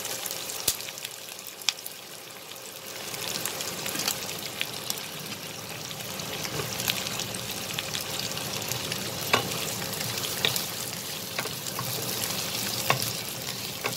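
Cubed onion and capsicum sizzling in hot oil in a wok-style pan while being stirred with a wooden spatula, with occasional sharp clicks. The sizzle grows louder about three seconds in.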